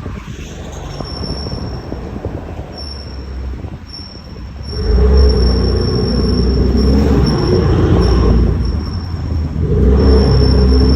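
BMW M3 F80 rear brakes making a grinding, squealing noise while the car turns, which happens only when the brake pads are warm. Quieter for the first few seconds, then much louder from about five seconds in, easing briefly and rising again near the end, with a thin high whistle over it.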